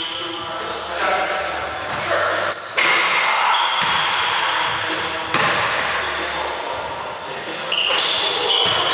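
Basketball bouncing and sneakers squeaking on a hardwood gym floor, with players' voices, in a large reverberant indoor gym. There are several sharp bounces and a few short, high squeaks.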